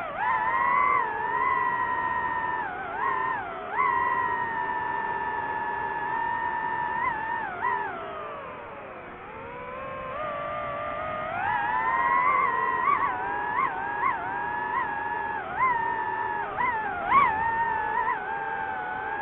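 DJI FPV drone's motors and propellers whining, the pitch rising and falling as the throttle changes. The pitch sags low about nine seconds in, climbs back a few seconds later, and flicks up and down in quick blips near the end.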